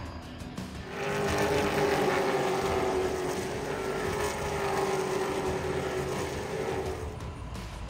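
Race car engines running at high revs on the track, swelling in about a second in, holding a steady pitch for about six seconds, then dropping away near the end.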